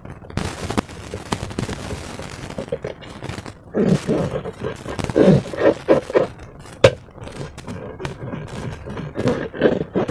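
Slime and balloons being handled by hand: irregular squishing and squelching, with scattered taps and scrapes.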